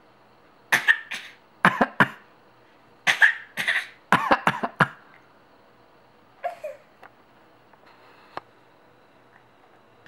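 Short coughs in four quick clusters over about four seconds, several coming in twos, traded back and forth like a playful coughing exchange. A fainter vocal sound follows, then a soft click.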